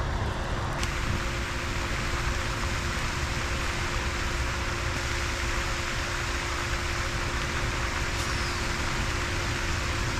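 Steady rushing outdoor noise, even and unbroken, with a faint steady hum beneath it and a few faint clicks.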